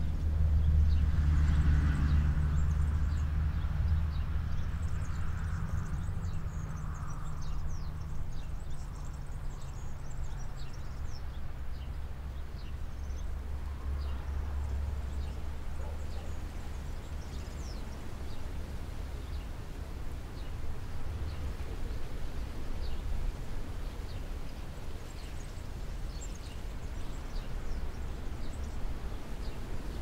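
Outdoor ambience: a low engine hum, loudest at the start and fading out by about twelve seconds in, over a steady low rumble. Faint, short high chirps are scattered through it.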